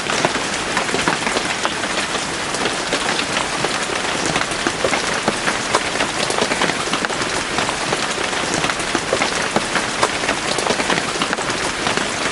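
Steady rain falling in a forest, with many individual drops pattering on leaves and surfaces.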